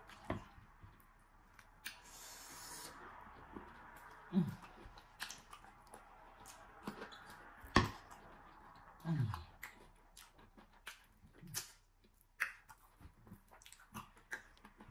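Close-up eating sounds from a person eating eba dipped in slimy ogbono soup by hand: scattered wet mouth clicks, smacks and chewing. There are two short low hums falling in pitch, about four and nine seconds in.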